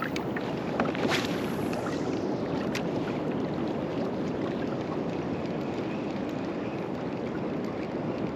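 Steady wind and water noise around a fishing kayak, with a couple of faint clicks about one and three seconds in.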